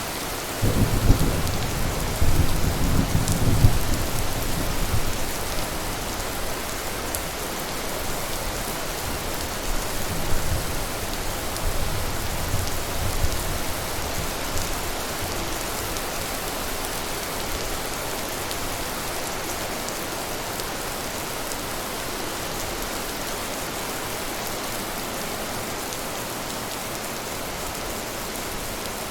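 Steady rain falling, with a roll of thunder rumbling in about a second in and fading over the next few seconds, then a weaker second rumble around ten seconds in before it dies away to rain alone.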